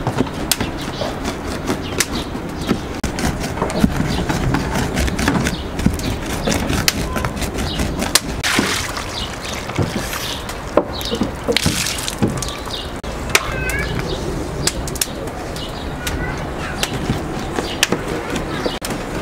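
Large curved chopping knife chopping minced meat and onion on a wooden board: rapid, irregular knocks. A tap runs briefly in two spells around the middle.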